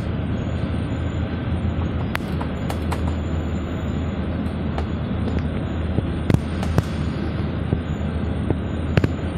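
Steady engine and road rumble inside a moving city bus, with a few short sharp clicks or knocks.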